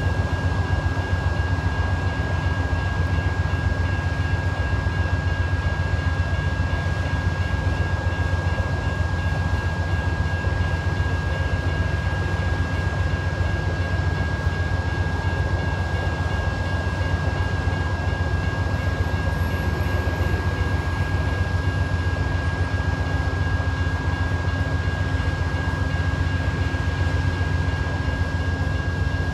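Amtrak diesel locomotive running with a steady low rumble while stopped or creeping toward a grade crossing. Over it, the crossing's warning bell rings with a steady high tone.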